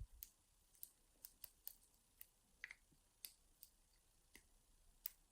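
Faint, small clicks of a hacksaw-blade pick and tension tool working the pins inside a 30mm Draper padlock with mushroom pin tumblers, about a dozen at uneven intervals, the loudest near the end.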